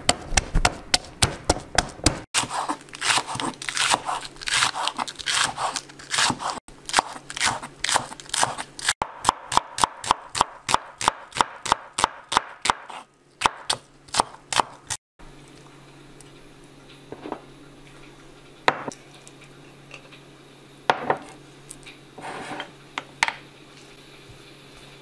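A wooden pestle pounding garlic cloves in a ridged ceramic mortar, then a kitchen knife chopping on a wooden cutting board, slicing an onion in rapid, even strokes of about four a second. About fifteen seconds in the chopping stops, leaving only a few scattered light knocks.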